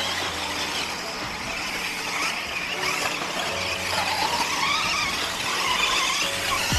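Electric 1/10-scale off-road RC buggies racing on a dirt track: the high whine of their motors and drivetrains rising and falling as they accelerate and brake through the corners.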